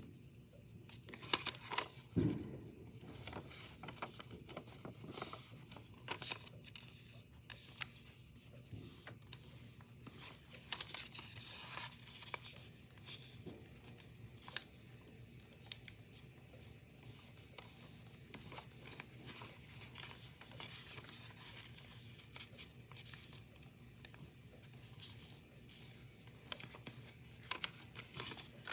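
Origami paper rustling and crinkling as hands fold it and press the creases, in scattered short crackles and rubs, with a soft thump about two seconds in.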